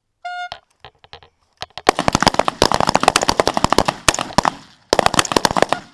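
A short start horn, then a line of rifles opening fire. A few scattered shots come first, then a dense, rapid volley of overlapping shots for about four seconds as several shooters fire their strings at once.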